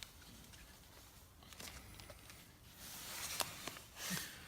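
Faint clicks and rustling of hands fitting a spark plug wire terminal and its small top screw onto a spark plug.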